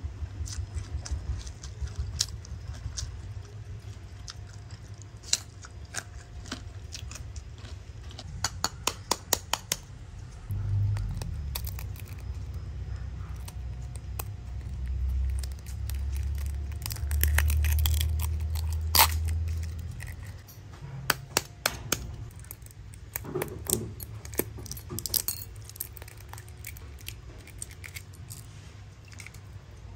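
Eggshell of a boiled balut (fertilized duck egg) being cracked and peeled by hand: a run of sharp crackles and clicks of breaking shell, some in quick clusters, with a low rumble through the middle stretch.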